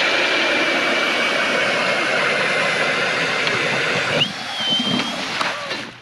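Milwaukee M18 Fuel cordless drill spinning an Eskimo 8-inch pistol bit auger through thick ice: loud grinding with a steady motor whine. About four seconds in, the whine jumps higher and the grinding lightens as the bit breaks through the ice, and it stops near the end.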